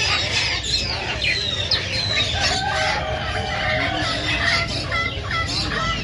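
A chorus of many caged birds, parrots among them, with chirps, whistles and calls overlapping throughout. One longer, lower call runs for about a second and a half around the middle.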